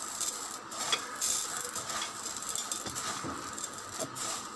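Dry, whole skinned urad dal grains rustling as a hand scoops and stirs them into a steel measuring cup, with a few faint clicks.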